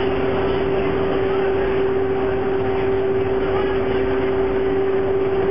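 Boat engine running steadily, heard from on board while under way: a constant hum over a steady rush of noise.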